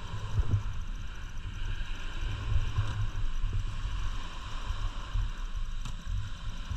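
Wind buffeting the microphone, an uneven low rumble over a steady hiss, with a couple of brief knocks as fish are handled on the boat.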